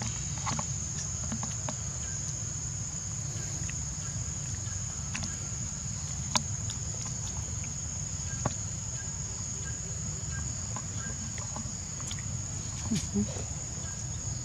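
Steady high-pitched insect drone holding one pitch, over a low rumble, with a few scattered small clicks.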